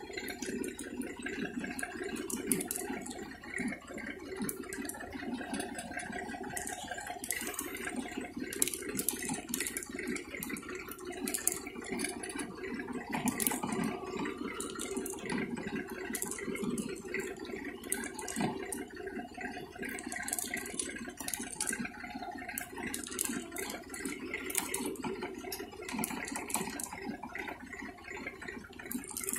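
Seed drill running, a steady mechanical rattle with many small clicks.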